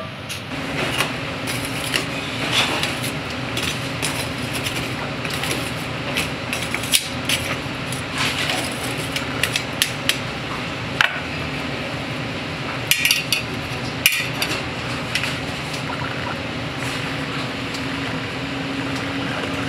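Scattered metallic clinks and knocks of metal tongs working lumps of charcoal in a charcoal grill, over a steady background hum.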